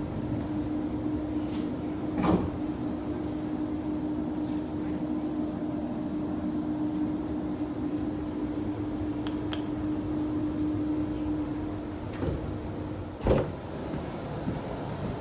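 Powered sliding door of a New Generation Rollingstock train's accessible toilet opening at the push of its button, over the carriage's steady rumble. A steady low tone runs until about twelve seconds in, with a click a couple of seconds in and a louder thud about a second after the tone stops.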